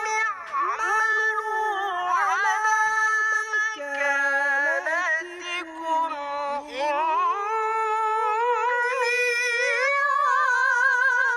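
A young male qari chanting the Qur'an in the ornamented, melodic tilawah style, with sweeping runs up and down in pitch and a long high note held over the last few seconds.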